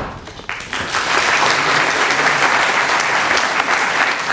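Large audience applauding: a few claps at first, swelling to full, steady applause within about a second.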